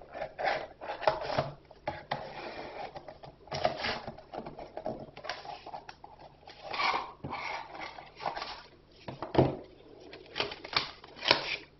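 Blister pack being opened: a folding knife cutting along the cardboard card and clear plastic, then the plastic blister rustling and clicking as it is pulled free. Irregular scrapes and clicks, with several louder snaps.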